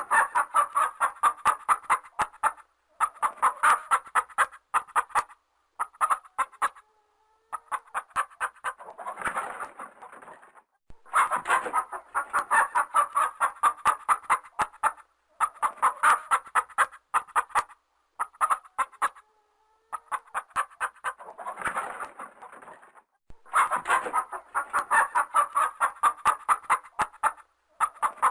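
Hens clucking: runs of short, rapid clucks, several a second, broken every few seconds by brief silent gaps.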